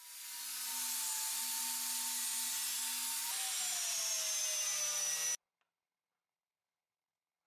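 Angle grinder with a wire brush scouring rust from a steel drawknife blade: a steady high whine over a scratchy hiss. The pitch sags slightly about three seconds in, and the sound cuts off suddenly a little after five seconds.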